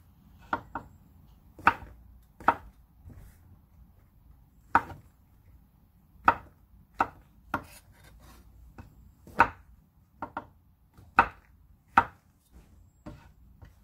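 Chef's knife slicing shiitake mushrooms on a wooden cutting board: the blade knocks through the cap onto the board about a dozen times at an uneven pace, some cuts coming in quick pairs.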